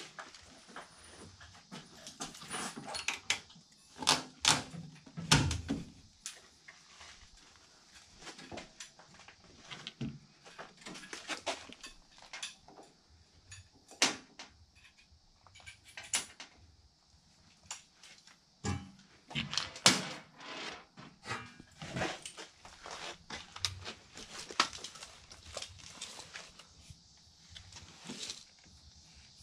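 Irregular knocks, clicks and light scrapes from handling and fitting a furnace's sheet-metal panels and plastic fittings, with a few sharper knocks among them.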